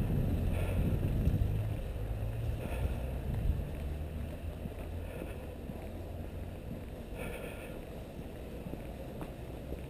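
Low, steady rumble of wind and handling noise on a walking camera's microphone, strongest in the first few seconds and then easing off.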